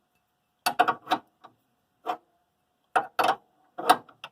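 Ratchet wrench clicking in short bursts of two or three clicks, about a second apart, as the bolt of a car's stabilizer link is turned.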